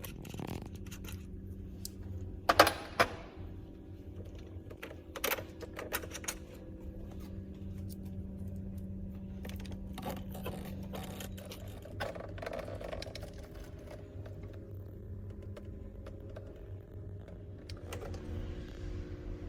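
Scattered sharp metal clicks and knocks from hand tools and handlebar parts being handled, the loudest about two and a half seconds in, over a steady low hum.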